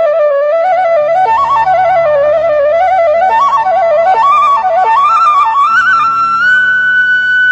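Bansuri flute music: an ornamented melody that winds up and down over a low sustained accompaniment, then settles onto a long held higher note near the end.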